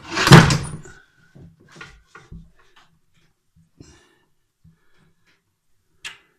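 Screw extractor turned with a tap wrench against a snapped-off bolt, giving one loud metal creak of under a second, followed by scattered light clicks of the tools being handled and a short click near the end.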